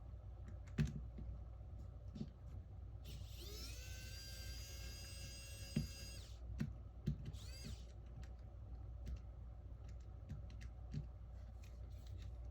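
Small electric precision screwdriver whirring: its motor whine rises about three seconds in, holds steady for about three seconds and stops, then gives another short rising spin about a second later. Small clicks and taps of tiny screws and tools on the work mat come and go throughout.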